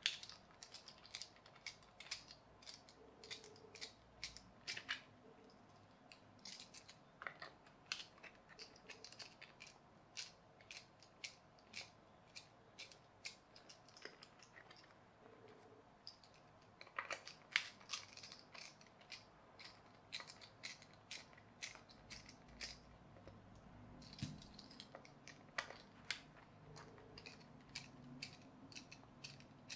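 Small screwdriver undoing the screws of a toy's plastic battery compartment: quiet, irregular clicks and light scrapes of metal on plastic, often several a second.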